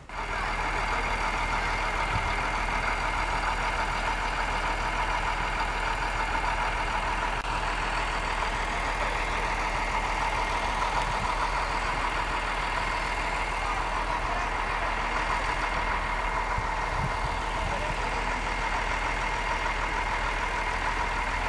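A diesel train engine idling steadily, with a constant whine over its rumble.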